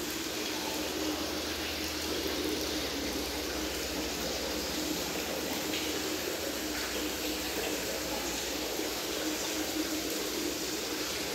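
Steady rush of circulating aquarium water from the tank's pump, with a low steady hum underneath.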